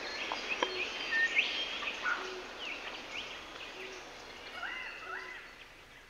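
A field recording of a bush soundscape played back in a lecture hall: several birds calling at once, with high chirps and short whistled notes over a steady hiss, and two hooked rising notes near the end. The recording fades out toward the end.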